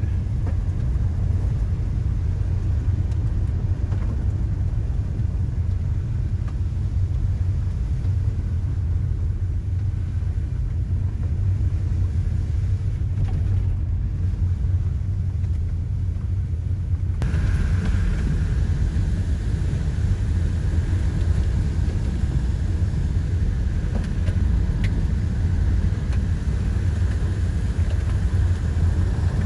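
Steady low rumble of a car driving, heard from inside the vehicle. About two-thirds of the way through, a fainter higher-pitched hum joins it.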